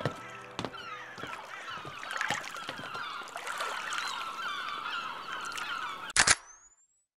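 A flock of geese honking, many overlapping calls. About six seconds in, a sharp hit with a short rising whistle cuts it off into near silence.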